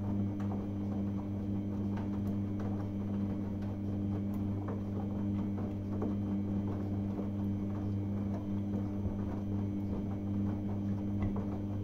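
Samsung front-loading washing machine in the main wash of a Cottons 30 Intensive cycle: the drum turns with a steady motor hum while the wet laundry tumbles in water with a continuous uneven patter and knocking.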